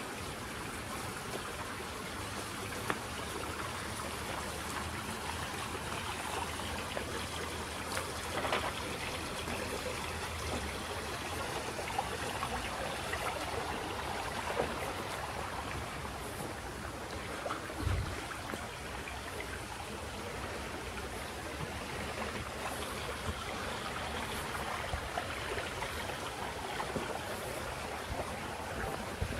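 A small brook trickling and babbling steadily over its bed.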